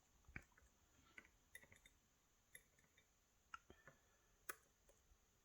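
Faint, irregular small clicks and ticks of the disassembled Yale 2000 Plus lock's small metal parts being handled with tools. The clearest click comes about four and a half seconds in.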